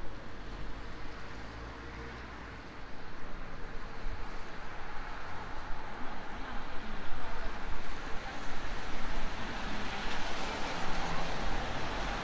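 Jet airliner passing overhead, a broad rushing roar that swells from about three seconds in and keeps building toward the end.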